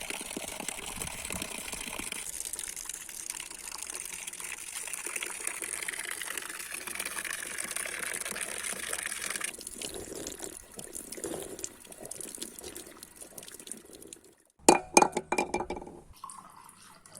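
Water pouring steadily for about nine seconds, then softer, uneven splashing and trickling. A brief cluster of sharp, loud knocks comes near the end.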